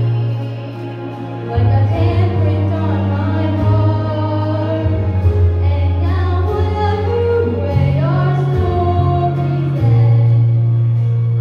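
A girl singing into a microphone over a backing track played through PA speakers, with held bass notes under the melody. The music drops briefly just after the start, then comes back in full.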